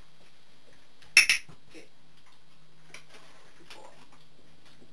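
A dog-training clicker clicks once, a sharp press-and-release about a second in, marking the moment the dog performs the behaviour. A few faint taps follow.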